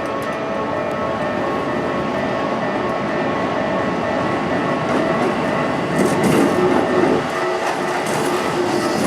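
A Keikyu electric train running past at a level crossing: a continuous rumble of wheels and motors with steady held tones over it. It grows louder about six seconds in, with wheels clattering over the rail joints.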